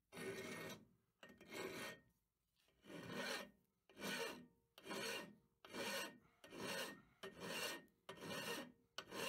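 Long flat hand file rasping across a steel key clamped in a bench vise, in about ten steady push strokes, a little faster than one a second. The oversized key is being filed down by hand to fit.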